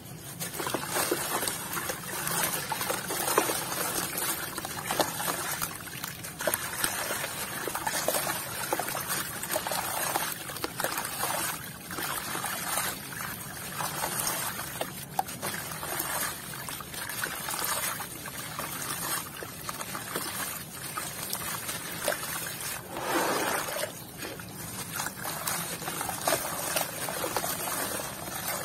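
A block of dry, grainy dirt crumbled by hand over a basin of water, crackling as it breaks, while the loose grit trickles and splashes into the water in irregular pours.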